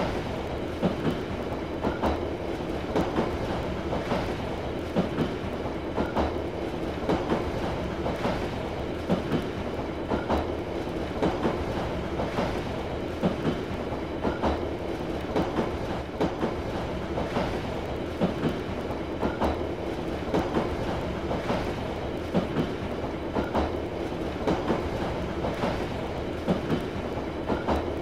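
A train running along the rails, with a steady rumble and a rhythmic clickety-clack of wheels over rail joints, about one clack a second, often in pairs.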